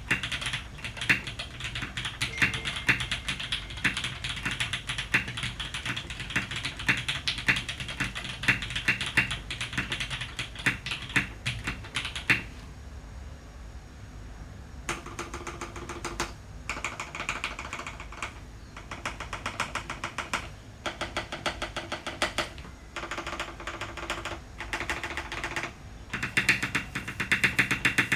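Typing on a custom Jane V2 CE tenkeyless mechanical keyboard: top-mount aluminium plate, lubed and filmed Cherry MX Black linear switches, Imsto PBT keycaps. Fast continuous keystrokes for about twelve seconds, a pause of a couple of seconds, then typing in short bursts with brief gaps.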